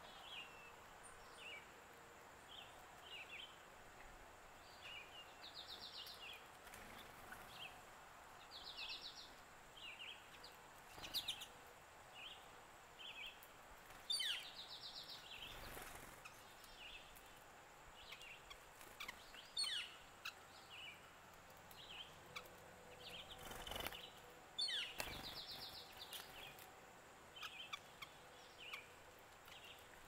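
Small songbirds calling around a seed feeder: many short chirps repeating throughout, with several brief, rapid buzzy trills, over a faint outdoor hiss. A few sharp taps come through now and then.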